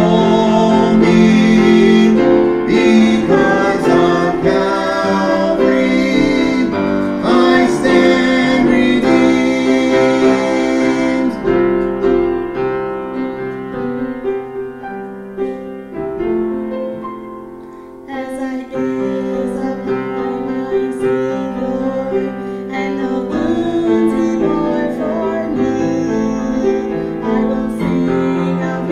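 Gospel duet of a man and a woman singing over piano. The voices drop out at about eleven seconds, leaving a softer piano passage, and singing, the woman's voice, comes back in around eighteen seconds.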